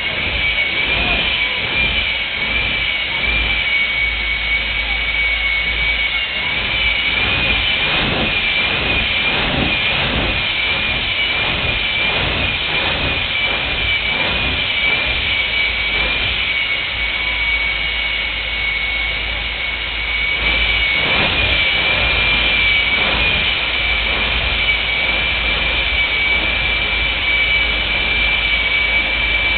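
Jet engines of a jet-powered semi truck running at the starting line: a steady high-pitched whine over loud rushing noise. There is a run of short bursts in the middle as it throws flames from its stacks, and it grows louder about two-thirds of the way through.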